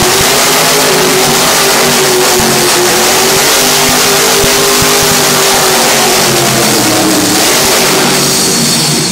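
Monster truck's supercharged V8 engine held at high revs while the truck spins donuts: a loud, steady engine roar whose pitch wavers slightly, easing off near the end.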